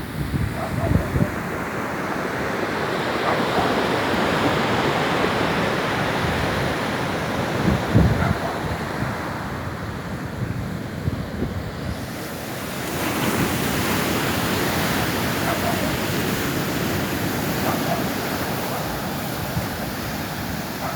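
Ocean surf washing onto a beach, swelling twice as waves break, with wind gusts buffeting the microphone.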